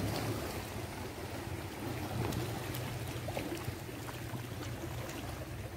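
Small waves washing and splashing against shoreline rocks, over a steady low hum.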